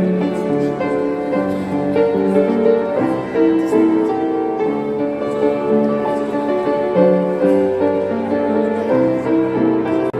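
Piano music played on a keyboard: a slow melody of held notes over chords.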